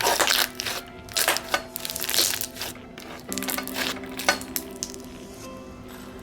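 Thick, chewy coated clear slime being worked by hand, giving quick sticky pops and crackles, densest in the first few seconds. Background music with held tones plays underneath.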